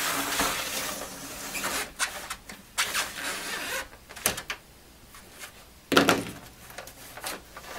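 Plastic case of a Commodore 128 being lifted and shifted on a wooden bench: a sliding, scraping rustle for the first couple of seconds, then scattered clicks and knocks of plastic and a screwdriver, the loudest about six seconds in.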